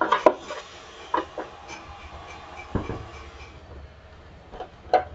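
Scattered clicks and knocks of a screwdriver and hands on a mixer grinder's plastic housing while the nuts holding its body together are being undone, with a duller, heavier knock just before the three-second mark.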